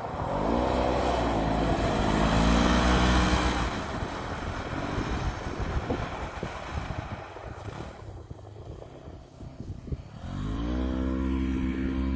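Polaris RZR 900 Trail side-by-side's engine revving up and holding high, then easing off into a lower, uneven stretch with scattered clicks, and revving up again about ten seconds in.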